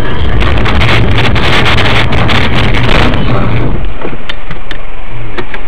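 Loud, distorted road and engine noise through a car dashcam's microphone, with scattered crackling clicks; the upper hiss thins out about two-thirds of the way through.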